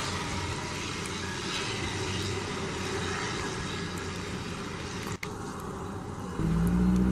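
Distant twin-turboprop airliner, a Fairchild Swearingen Metroliner, running its engines as it rolls along the runway: a steady rushing engine sound that fades gently. A louder low hum comes in near the end.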